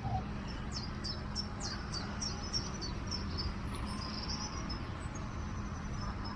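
A songbird singing a quick run of short, high, descending notes, then a further warbled phrase, over steady low background noise.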